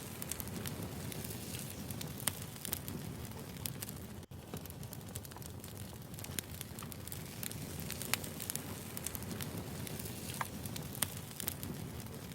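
Wood fire burning: a steady low rumble of flames with irregular sharp crackles and pops from the burning logs. The sound drops out for an instant about four seconds in.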